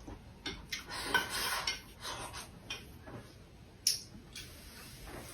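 Eating utensils lightly clinking and scraping against bowls and plates during a meal, with one sharper clink about four seconds in.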